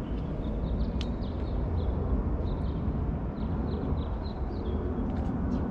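A steady low rumble, with small birds chirping many times in short high notes over it and a single sharp click about a second in.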